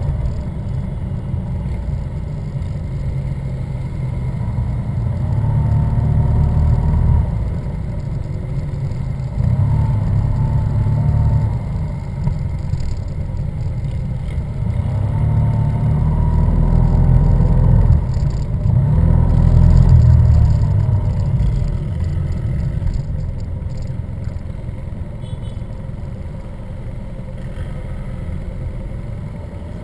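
Engines of a column of Yamaha TMAX maxi-scooters riding together, swelling and easing as the throttle is opened and closed, with the revs rising several times and loudest about two-thirds of the way through.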